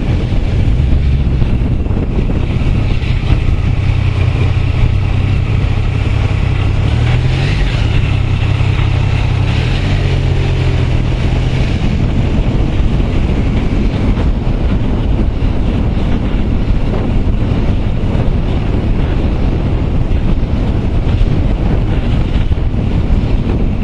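Motorcycle engine running at low road speed, heard through a helmet-mounted camera's microphone with wind rushing over it. The engine note is clear through about the first half, shifting in pitch briefly partway through, then sinks under the wind noise.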